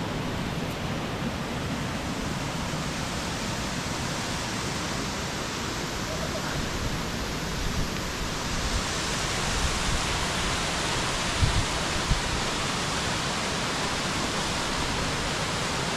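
Steady rushing of a mountain waterfall and stream, a little brighter and louder from about halfway through, with a few brief low thumps near the end.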